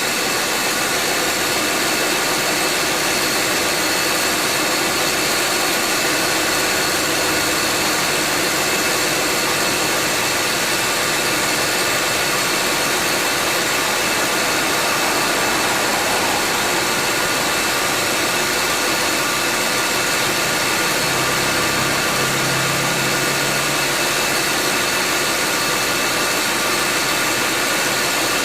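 2014 Subaru Forester's air-conditioning compressor running with the engine idling: a steady mechanical drone with several held whine tones, the compressor's abnormal running noise. It runs on without once cycling off, a sign of a worn compressor giving poor cooling.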